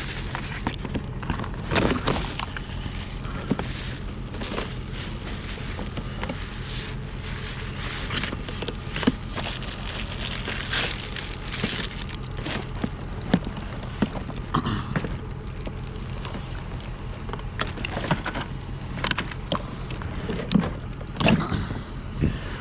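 Rummaging through a tote of scrap: scattered clicks, clatters and knocks of items being picked up and moved, over a steady low hum.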